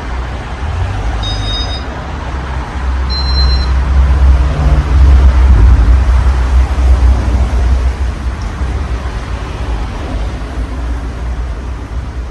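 Casablanca Halogen Star ceiling fan running with four blades: a steady low hum and rush of moving air, swelling louder for a few seconds mid-way. Two brief high chirps sound in the first few seconds.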